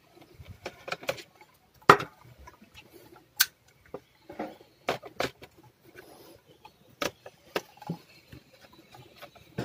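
Irregular clicks and knocks of a screwdriver and hands working on a plastic laptop case while its bottom screws are undone, the loudest about two seconds in.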